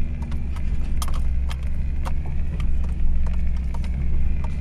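Hummer H3 off-roading, heard from inside the cabin: a steady low engine and drivetrain rumble at crawling speed, with irregular sharp clicks and knocks as the truck works over the rough trail.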